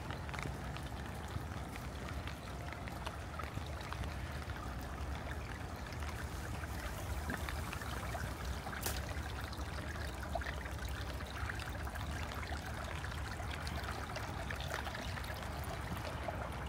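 Water running and trickling steadily, with many small scattered drips.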